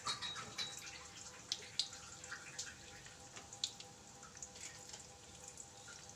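Mustard seeds and sesame seeds in hot cooking oil in a kadai, popping with faint, scattered, irregular crackles as a tadka (tempering) begins to cook.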